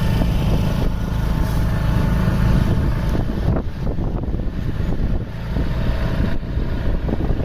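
Motor vehicle running on the road: a heavy low engine rumble mixed with road and wind noise, becoming more uneven from about three seconds in.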